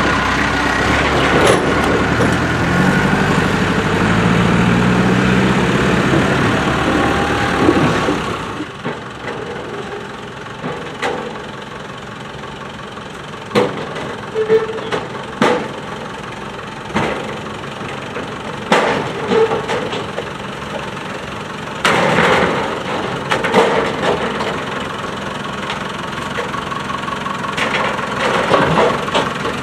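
A wagon-pulling tow tractor's engine working under load, its pitch climbing over the first few seconds and then easing off about eight seconds in. After that come scattered metal clanks and knocks as the circus wagons are hauled off the flatcars and down the ramp.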